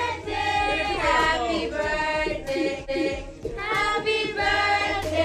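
Several voices singing together in a song-like melody over a steady low bass.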